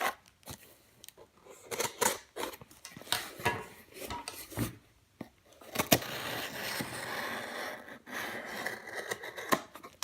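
A package being handled and opened by hand: a string of clicks, taps and scrapes, then a steady rasping rub from about six seconds in.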